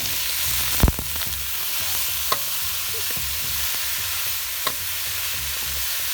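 Food sizzling steadily in hot oil in a pan, with a sharp knock of a utensil against the pan about a second in and a few lighter taps after it, as the pan is stirred.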